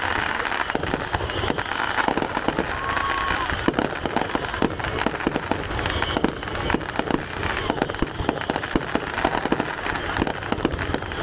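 Aerial fireworks display: a dense, continuous run of bangs and crackling pops from bursting shells, several a second.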